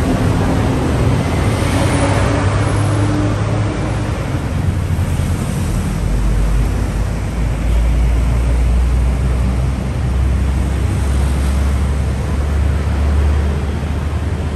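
City street traffic, with vehicles running past. A deep engine rumble sets in about six seconds in and holds until near the end.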